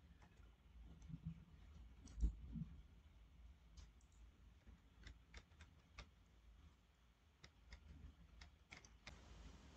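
Faint, irregular clicks of a computer mouse, with a louder low thump about two seconds in.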